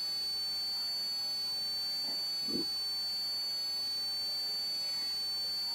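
Steady low hiss with a faint, thin high-pitched whine under it, and one faint short low sound about two and a half seconds in.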